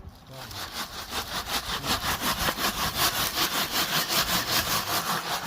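Rapid, rhythmic scraping strokes of a hand tool working on wood, about six strokes a second.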